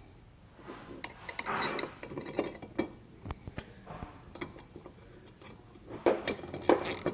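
Light metallic clicks and clinks of bolts and hardware being hand-tightened into a side step's zinc-plated steel mounting brackets, scattered, with a few sharper clicks near the end.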